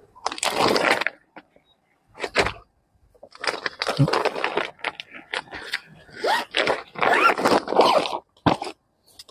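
Crinkling, rustling plastic wrapping as garments are handled, in several bursts with short pauses between.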